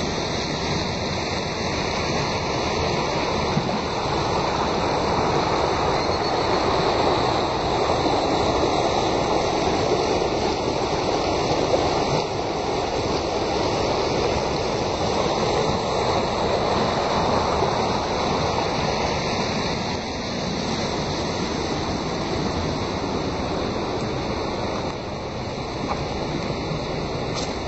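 Shallow river rushing over rocks and small rapids: a steady, even rush of water.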